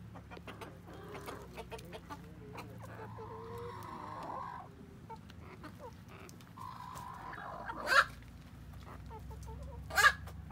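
Silkie chickens clucking and calling, with two short, loud sharp sounds near the end.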